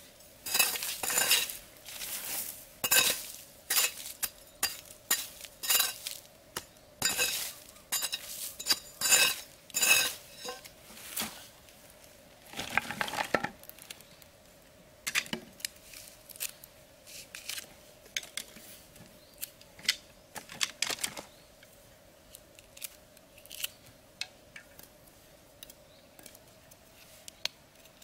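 Tools and rope being handled on the ground: a string of clinks, knocks and rustles, dense in the first half and sparser later, with a longer rustle about halfway through. A faint steady hum runs underneath.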